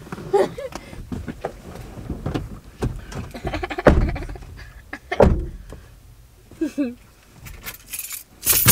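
People shifting from the front seats into the back seat of a car, with knocks and thumps against the seats and interior, the two loudest about four and five seconds in. There are brief vocal sounds, and a loud rustle near the end.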